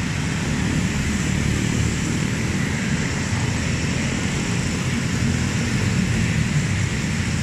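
A stream of motorcycles and scooters riding past in a steady procession, their many engines blending into one continuous drone.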